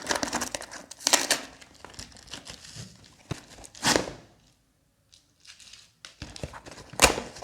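Earphone packaging being opened by hand: irregular crinkling and tearing, stopping for a moment in the middle, with a sharp loud rustle near the end.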